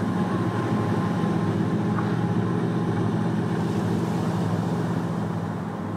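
Fishing boat's diesel engine running steadily with a low, even hum.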